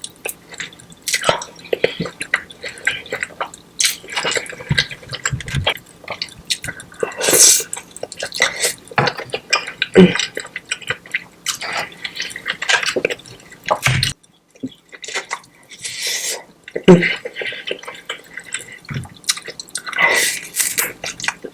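Close-miked eating of a saucy seafood boil: wet smacking and chewing with many sharp clicks, and a few longer sucking slurps.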